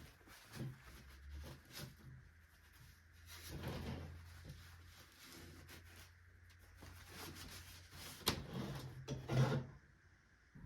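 Handling noises from work on a small doll chair: rubbing and shuffling with a few light knocks, the sharpest two near the end.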